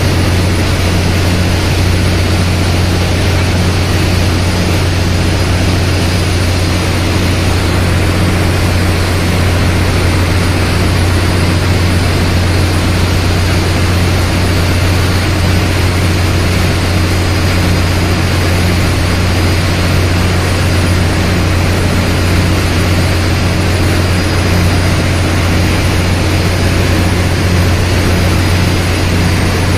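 Cargo ship's engine-room machinery running: a loud, steady drone with a constant deep hum under an even wash of machine noise.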